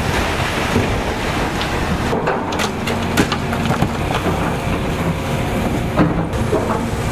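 Demolition din from a John Deere 350G excavator's diesel engine working as its attachment breaks into a brick and wood-framed building, with crunching masonry and scattered sharp knocks of falling debris.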